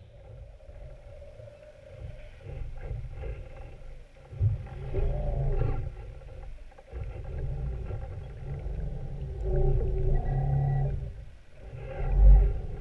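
Engine and propeller noise of passing motorboats heard underwater, through the camera's waterproof housing: a low rumble with a droning tone that swells and fades several times. A brief low thump comes near the end.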